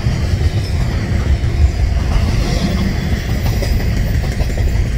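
Double-stack intermodal freight train's container-laden well cars rolling past, a steady heavy rumble of steel wheels on the rails.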